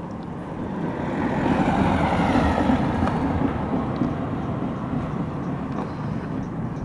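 A vehicle passing by: a noise that swells about a second in, peaks shortly after and fades slowly away.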